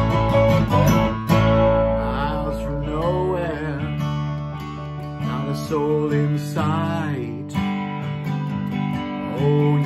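Acoustic guitar strummed in an instrumental passage of a folk song, with sustained bass notes underneath and a wavering, bending lead melody line over the top.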